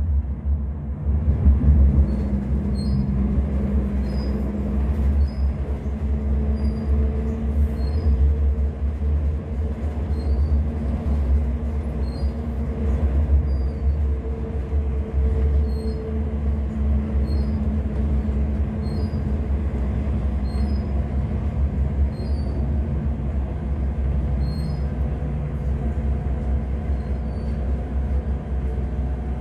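Stagecoach Supertram tram running along its track, heard from inside the passenger saloon: a steady low rumble with a constant motor hum over it.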